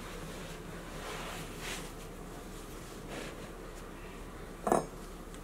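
Cloth wiping a plastic cutting board: a couple of soft swishes, then one short sharp knock near the end.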